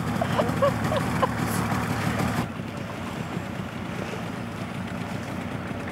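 Outboard motor of an inflatable boat running steadily, with wind on the microphone. About two and a half seconds in, the sound turns quieter and duller.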